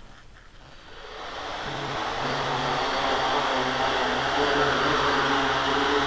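Tricopter's brushless motors and propellers spinning up about a second in, then whirring steadily at a constant speed with a hum of several steady tones.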